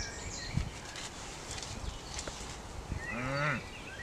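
Quiet woodland ambience with faint bird chirps and a few soft knocks. About three seconds in comes one short, low, wavering voice-like call.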